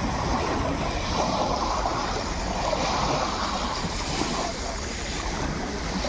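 Small sea waves breaking and washing over a pebble beach: a steady rush of surf, with a low wind rumble on the microphone.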